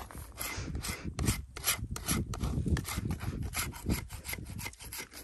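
Metal putty knife scraping a lump of damp natural chalk in quick repeated strokes, about three a second, cleaning the dirty outer layer off the wet chalk.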